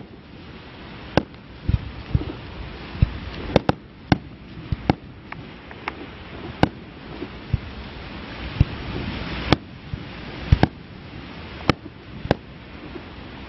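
Aerial firework shells bursting one after another in a display, each a sharp bang, about one a second with uneven spacing. A steady hiss runs beneath them and swells around nine seconds in.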